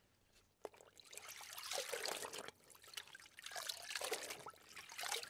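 Faint water trickling and splashing over stones in a shallow stream, coming in swells that rise and fall about every second and a half.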